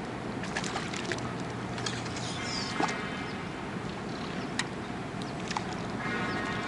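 Seaside fishing-spot ambience: a steady wash of water with scattered small clicks, and a faint hum that comes in twice.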